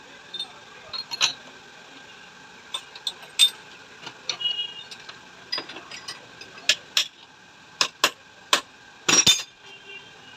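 Metal tools and shock absorber parts clinking and tapping: about a dozen irregular sharp metallic clinks, with the loudest cluster about nine seconds in, over a faint steady tone.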